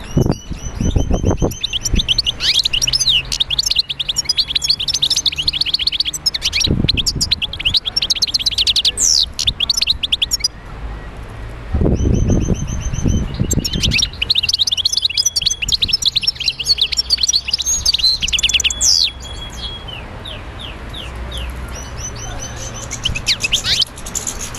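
A bird singing in long bouts of rapid, high chirps and trills, with a few low thuds along the way.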